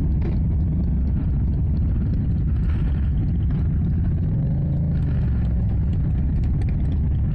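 Motorcycle engine running at low speed with a steady low rumble.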